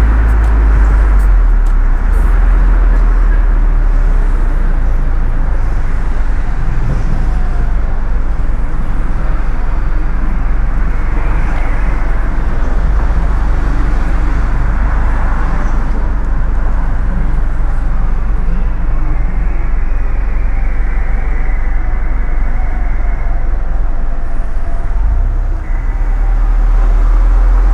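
A car driving on wet city streets: steady tyre and road noise over a deep rumble, with a brief dip about 25 seconds in.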